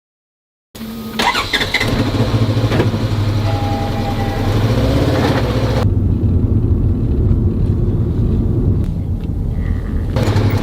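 An engine running steadily with a low drone and a hiss over it. The hiss eases about six seconds in and comes back near the end.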